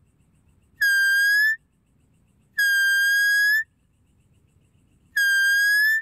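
Deer calling: three high, whistle-like calls, each just under a second long and rising slightly in pitch at the end.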